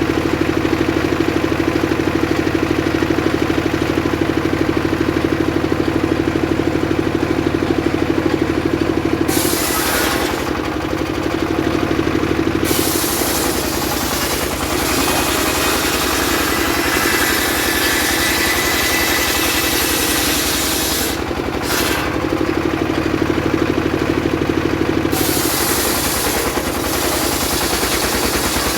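Engine-driven circular sawmill running steadily. Its blade cuts through sengon (albizia) wood in long passes, a loud hiss laid over the engine: briefly about a third of the way in, then almost continuously through the middle and later part with a short break, and once more briefly near the end.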